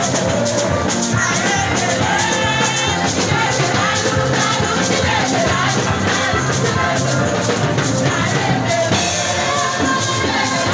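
Church choir singing an upbeat gospel song over amplified band accompaniment with a steady, driving beat.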